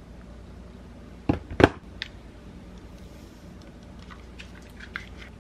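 Handling noises in a small quiet room: two sharp knocks in quick succession a little over a second in, then a lighter click and a few faint ticks, as someone moves about with a phone in hand.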